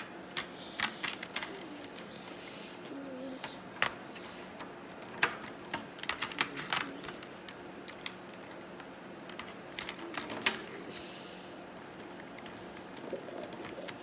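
Plastic speed-cube pieces clicking as edge and corner pieces are fitted and snapped onto the cube's core: irregular sharp clicks, a few at a time, scattered throughout.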